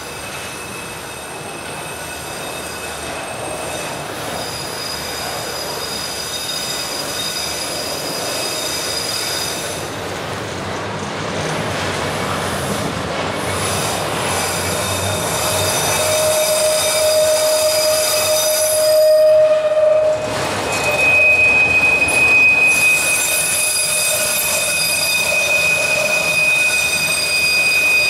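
A passing CSX freight train, its steel wheels squealing against the rails over the rumble of the train. Several thin, high squealing tones are held over the noise, and the sound grows louder throughout. A strong lower squeal sounds just past the middle, then a brighter, higher one holds to the end.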